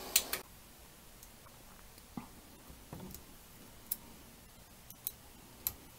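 Anet A8 3D printer's cooling fans running with a steady hum that cuts off about half a second in. After that it is quiet apart from a few scattered light clicks of handling.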